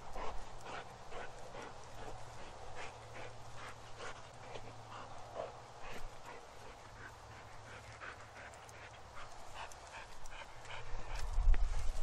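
Dog panting in a quick, even run of short breaths, with a louder low rumble near the end.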